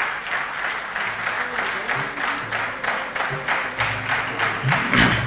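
Audience applauding, with background music playing under it; its low notes come in about a second in.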